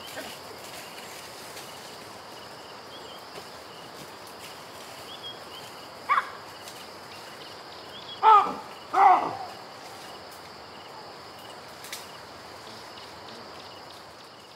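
Baboon giving three short barking calls, one about six seconds in and two in quick succession a couple of seconds later, over steady wild ambience with an even high drone.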